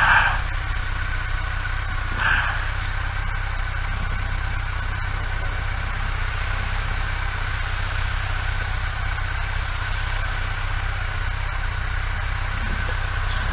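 Motorcycle engine running steadily with a low rumble, under even road and wind noise.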